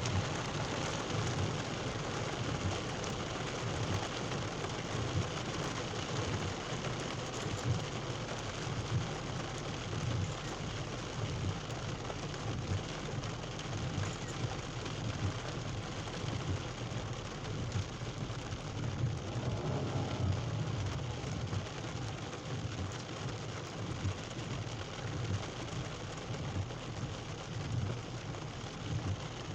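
Steady rain falling and splashing on surfaces during a thunderstorm, with a low rumble underneath throughout.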